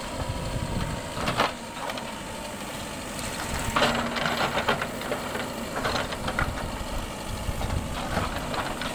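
Mahindra VX backhoe loader's diesel engine running under load as the backhoe digs, with bursts of scraping and crunching as the bucket bites into earth and tree roots, strongest about four seconds in and again near six and eight seconds.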